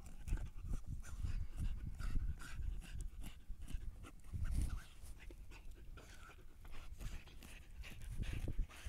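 Husky sniffing and panting hard with its nose down a hole in loose soil, with uneven scuffs and thuds of earth as it digs.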